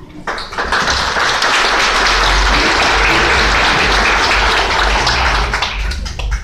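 Audience applauding: dense clapping starts within the first half-second, holds steady, and dies away near the end.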